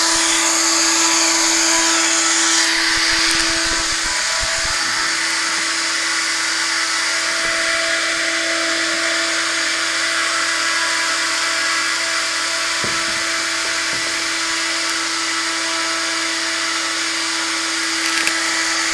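Model plane's electric motor spinning its propeller at steady throttle, a continuous whine over a hiss, slightly quieter after about four seconds.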